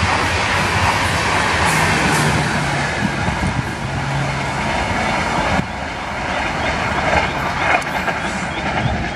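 Ashram Express passenger train's coaches running past at speed, a steady rush of steel wheels on rail. About halfway through the sound drops abruptly to a slightly quieter pass.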